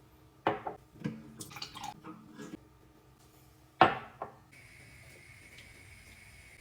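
Dishes and kitchenware being handled: a run of clinks and knocks with short ringing, the loudest knock about four seconds in, then a faint steady hum with a thin high tone starts.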